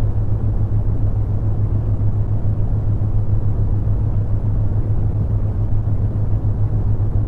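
Brown noise: a steady, deep rushing hiss, strongest in the low end. Under it a low hum throbs rapidly and evenly, a theta-wave beat.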